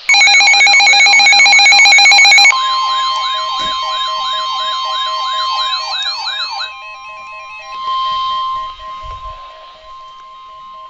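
Emergency alert attention tones announcing a flood warning: a loud, fast-warbling siren tone for about two and a half seconds, then a slower warbling siren over a steady single-pitch tone, which carries on alone for the last few seconds.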